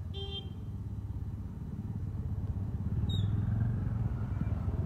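A motor engine running with a low, fast pulsing, growing louder over the first few seconds. Two short high chirps sound over it, one near the start and one about three seconds in.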